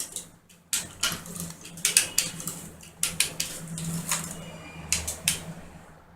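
Repeated sharp metallic clinks and rattles from a home-built hoist as it is worked. A steady low hum runs under them from about a second in until near the end.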